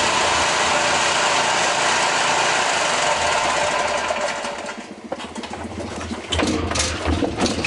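Gas-engine pressure washer running with its water jet spraying: a loud steady hiss that stops about four and a half seconds in. The engine keeps running after that, with irregular rattling clicks.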